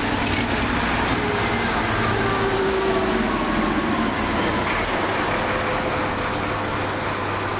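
Double-decker bus driving past close by, its engine running with a whine that slides slowly down in pitch over a steady low hum.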